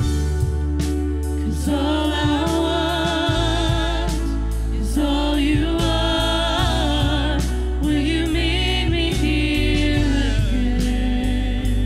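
Live contemporary worship song: singers with vocal vibrato over piano, bass, keyboard and a steady drum beat.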